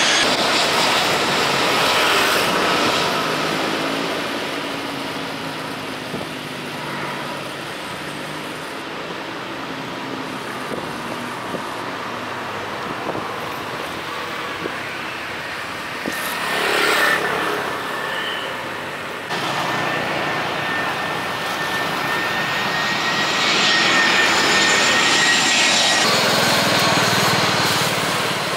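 Jet airliners landing: engine noise loud at the start as one passes low overhead on final approach, quieter through the middle, then rising again as another comes in, with a steady high engine whine in the later part.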